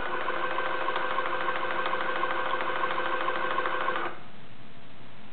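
Watson-Marlow 323Dz peristaltic pump running to dispense a single dose through its tubing: a steady motor whine of several pitches with a light regular pulse from the rollers, stopping suddenly about four seconds in as the dose ends.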